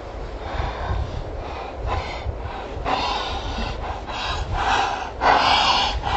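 A man laughing and snorting in breathy bursts that grow louder toward the end, over a steady low rumble of wind on the microphone.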